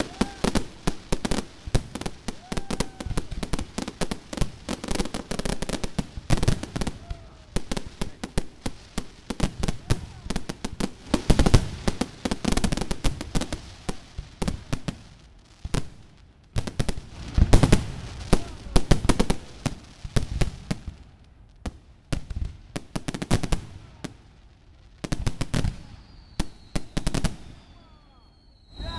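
Fireworks display: a rapid barrage of aerial shell bursts, dense at first, then thinning to scattered groups of bangs in the second half and dying away near the end.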